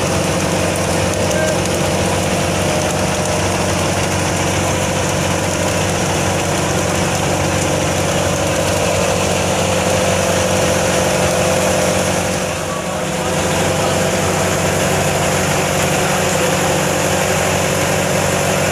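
An engine aboard a fishing boat running steadily at a constant speed, a continuous even drone.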